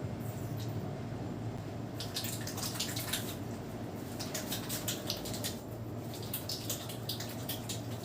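Hands massaging a person's scalp and hair, giving repeated bursts of quick, small crackling clicks that start about two seconds in, over a steady low hum.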